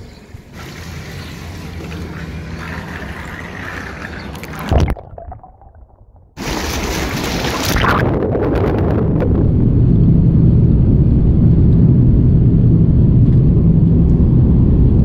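Jet airliner engines heard from inside the cabin just after takeoff: a loud steady roar with a low drone. It comes in about six seconds in, after a short near-silent break. Before that there is a quieter steady rushing noise.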